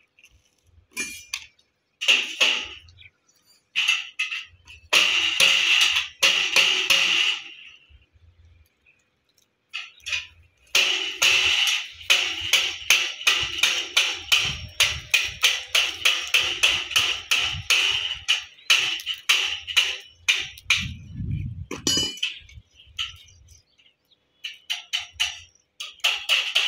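Stick arc welding on a steel gate: the electrode's arc crackles in several spells, the longest through the middle, stopping dead between them. In the pauses the transformer welder hums low.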